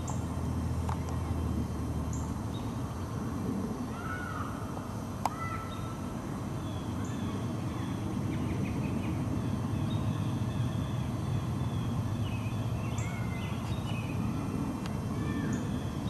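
Wild birds chirping and calling, many short calls scattered through, busiest near the end, over a steady low background rumble. A single sharp click about five seconds in.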